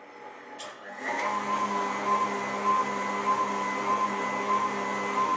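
KitchenAid stand mixer running at high speed, its wire whisk beating whipped cream; the motor comes up to speed about a second in and then holds a steady hum with a whine.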